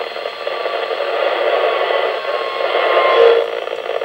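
Hiss from a Yaesu transceiver's speaker, tuned to the ARISSat-1 satellite's 2 m FM downlink. The satellite signal has faded into the receiver noise, with only faint steady tones left under the hiss.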